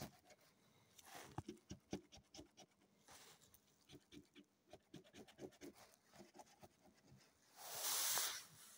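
A coin scraping the coating off a paper lottery scratch card in many short, quick strokes. Near the end comes one short, louder breathy puff.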